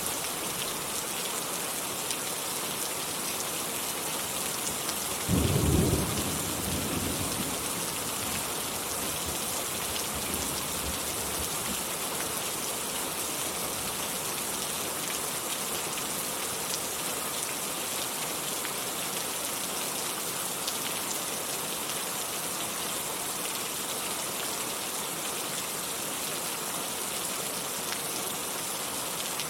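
Steady rain falling, an even hiss throughout, with a single low thunderclap about five seconds in that rumbles away over a second or two.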